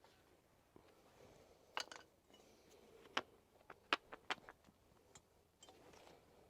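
Tools and metal brake parts being handled: a string of sharp, separate clinks and taps, the loudest a cluster around four seconds in.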